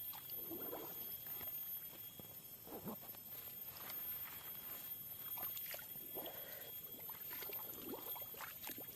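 Faint, irregular rustling of grass and vegetation with soft footsteps and scuffs as someone moves along a pond bank.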